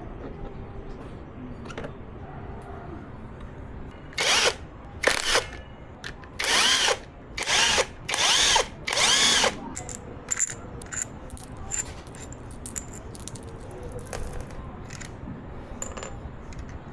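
Handheld power drill or driver run in six short bursts, its motor whine rising and falling with each trigger pull, followed by a scatter of light metallic clicks and tinkles.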